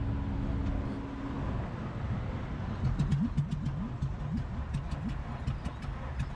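Low, steady vehicle rumble. From about halfway through comes a run of light clicks and scuffs, like footsteps on asphalt.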